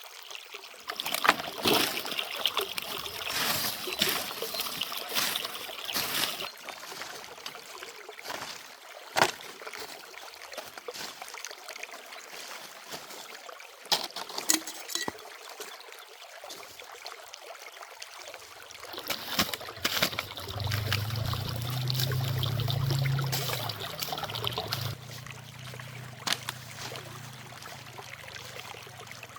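Water running and splashing, with a few sharp knocks. A low steady hum joins about two-thirds of the way in.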